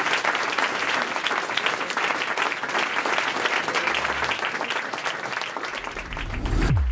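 Audience applauding, a dense run of claps that thins slightly toward the end. Near the end a low whoosh falls in pitch and settles into a deep steady hum.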